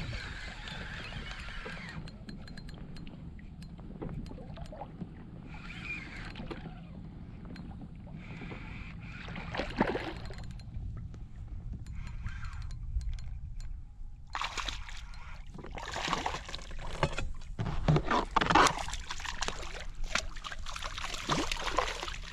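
A hooked small redfish splashing and thrashing at the surface beside a fishing kayak, in repeated noisy bursts through the last eight seconds or so as it is brought to the net. Before that, only low water sloshing and rumble around the kayak hull.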